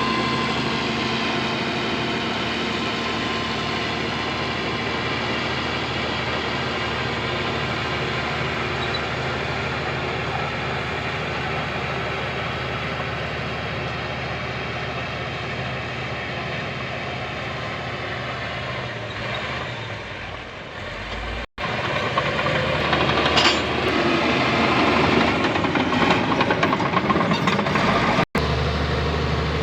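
Heavy diesel construction machinery running steadily. After a short break about two-thirds of the way through it turns louder and rougher, with rattling and clanking.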